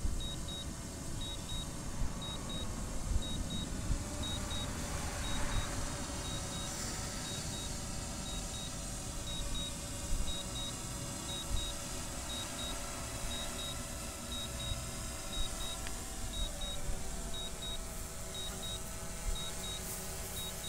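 DJI Phantom 3 Professional's return-to-home alert: a short high double beep repeating about once a second while the drone auto-lands, over steady background noise.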